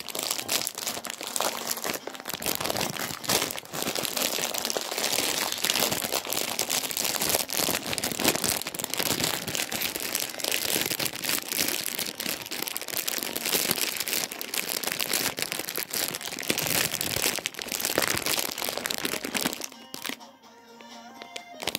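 Handling noise: something rubbing and scraping directly against the microphone, a dense, irregular crackling that drops away near the end.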